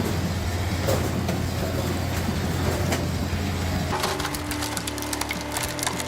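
Wood-splitting machine running with a steady low hum as wood cracks and splinters under it; about four seconds in the hum changes and a run of sharp cracks follows.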